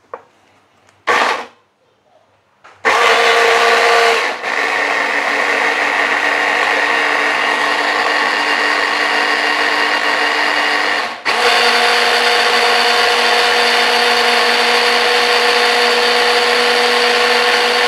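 Electric hand-blender chopper running as it blends garlic and ginger with a little water into a fine paste. A short pulse comes about a second in, then the motor runs steadily with a whine from about three seconds in, dipping briefly twice. Its pitch drops after the first dip and rises again after the second.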